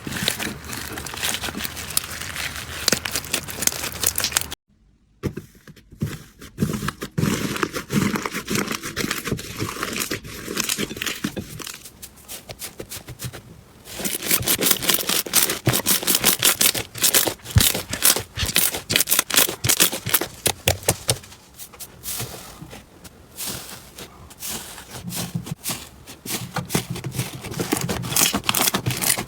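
Slime being squished, poked and stretched by hand: a dense run of rapid sticky clicks and crackles, broken by a short silence about five seconds in.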